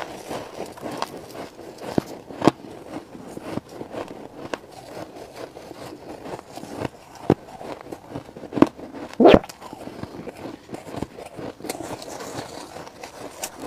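Close-up biting and chewing of frost-coated foam ice: irregular crisp crunches and crackles, with a few sharp snaps, the loudest about nine seconds in.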